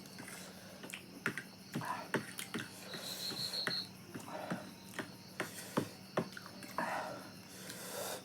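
Close-up eating sounds: irregular wet clicks and smacks of chewing and lip smacking, with breathy noises in between.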